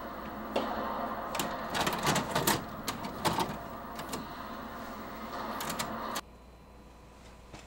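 VHS cassette pushed into a Hitachi F361 VCR and taken in by its loading mechanism: a run of plastic clicks and mechanical clunks, ending with a front-panel button press. A steady background hum cuts off suddenly about six seconds in.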